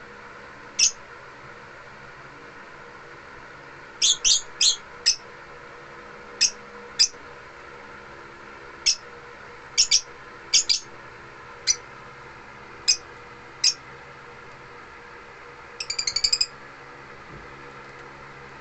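African lovebirds giving sharp, high-pitched chirps, some single and some in quick clusters, with a rapid chattering burst near the end. A steady low hum runs underneath.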